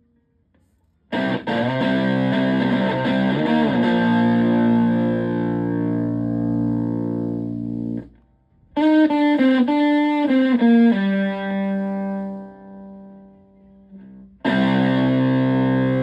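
Stratocaster electric guitar through a Zonk Machine fuzz pedal and a Twin Reverb-style amp. A fuzzed chord is struck about a second in and held for several seconds with a brief bend before being cut off. A quick run of notes follows, ending on a sustained note, and another fuzzed chord is struck near the end.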